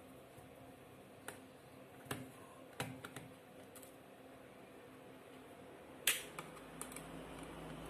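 Scattered light clicks and taps of a small screwdriver and tiny screws being worked out of a laptop's underside and set down, with the sharpest click about six seconds in, over a faint steady hum.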